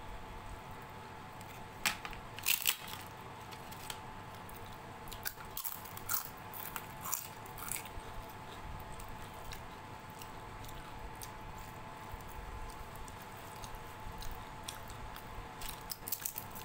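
Close-up eating sounds: crisp fried papad crunching and being chewed, with the loudest crunches about two seconds in and more between five and eight seconds. Soft squishing of khichdi being mixed by hand on a steel plate runs in between.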